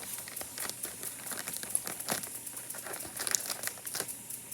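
Packaging being opened by hand: crinkling and crackling, with many small sharp clicks.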